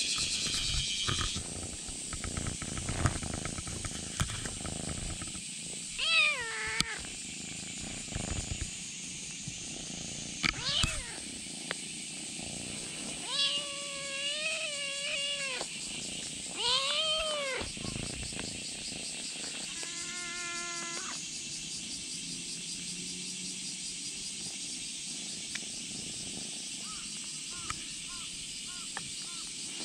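Kitten meowing: about five separate meows, each rising and falling in pitch, one of them longer and held for about two seconds. A few faint short mews come near the end.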